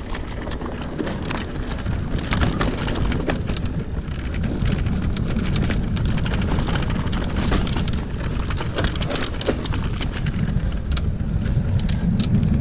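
Mountain bike rolling downhill on a dirt singletrack: a steady low rumble of tyres on dirt and loose stones, with many sharp clicks and rattles from the bike as it bumps over the ground.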